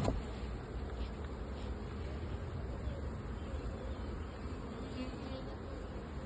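Honeybees buzzing steadily around their hives, over a low rumble.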